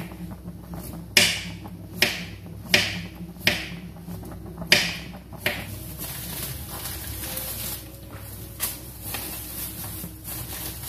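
Kitchen knife chopping carrot against a plate: six sharp cuts over about four seconds, each with a short ring. Then a plastic bag rustles as it is handled, with one more knock partway through.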